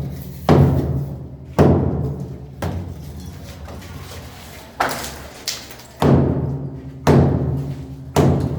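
Heavy hammer blows on brick masonry being broken up, about eight strikes at roughly one a second, each ringing and echoing as it fades.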